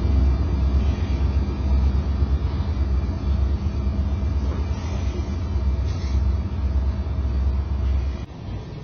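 Freight train of covered hopper cars rolling past on the track, a steady low rumble of wheels on rail that drops off sharply near the end.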